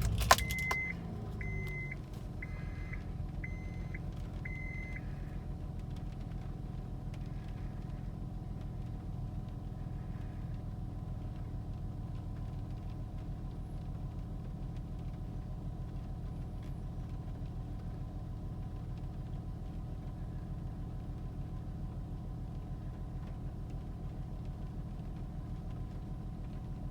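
A 2004 Honda Pilot's V6 engine starting and settling into a steady, even idle, with a dashboard chime beeping about six times in the first five seconds. The idle sounds smooth, which the owner takes as the rough idle being cured by the new oxygen sensor and cleared codes.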